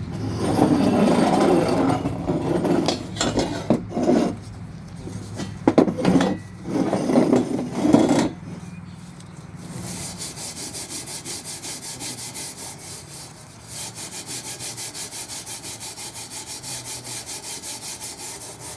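Rust being scrubbed off the metal of a kerosene heater by hand, a rasping scrape. It starts with loud, uneven strokes, then settles about halfway in into a fast, even back-and-forth of about four strokes a second.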